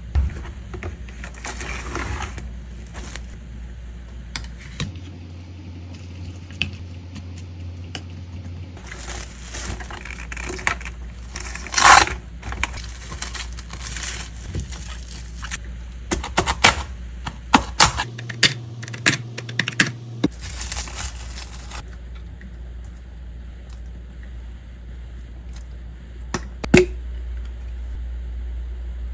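Kitchen handling sounds: scattered clicks, taps and clinks of dishes and utensils, busiest in the second half, over a steady low appliance hum.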